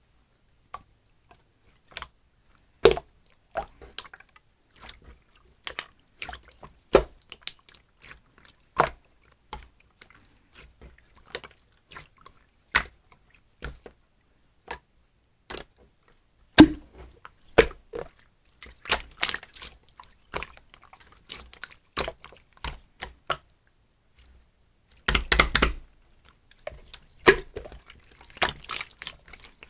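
Clear slime being squished and pressed by hand, making irregular wet clicks and pops, with a dense run of crackling pops near the end.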